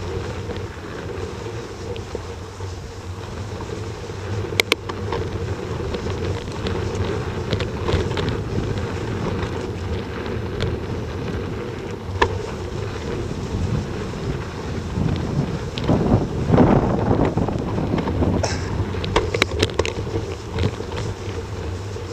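Wind rushing over the microphone of a camera moving fast along a snowy woodland trail, with a steady low rumble from riding over the ground and a few sharp clicks and knocks. The rumble grows louder and rougher for a couple of seconds about three-quarters of the way through.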